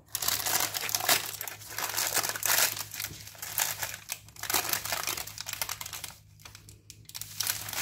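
Baking paper crinkling loudly as hands grip and pull at the sheets, starting abruptly and coming in irregular bursts, with a longer pause near the end.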